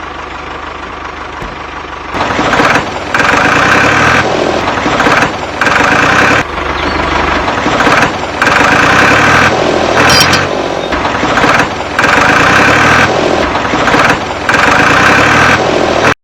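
Small machine motor running steadily, then louder, surging and briefly dropping back again and again, about once every second or so.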